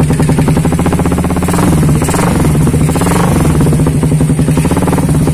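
Suzuki Satria FU's 150 cc single-cylinder four-stroke engine running through a WRX K3 aftermarket muffler, with a brief throttle blip about two seconds in. The exhaust note is tinny ("cempreng") because the muffler's glasswool packing is worn out after about eight months.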